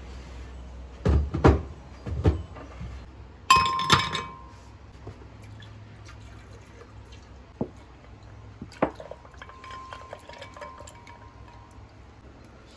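Glass and dishes clinking and knocking: a few knocks, then a loud ringing clink a few seconds in, and two more knocks later, one with a brief ring.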